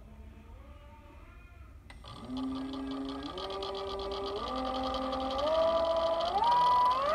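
Denzel 7500 W brushless electric motor on a Kelly KLS7230 sine-wave controller, spinning with no load and its drive sprocket bare. Its electric whine is faint at first; from about two seconds in, after a click, it climbs in pitch in distinct steps as the throttle is opened, getting louder toward the end.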